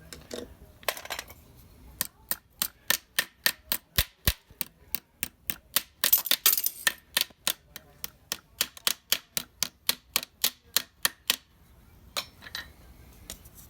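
Small hammer tapping rapidly on brass rivets, setting them to fasten a wooden liner to a Model T transmission band: a run of sharp strikes, about three or four a second, for roughly nine seconds, with a few scattered taps at either end.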